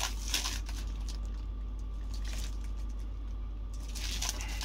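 Clear plastic wrap on a new scooter windshield crinkling and rustling as it is handled, a few short rustles near the start and more about four seconds in, over a steady low hum.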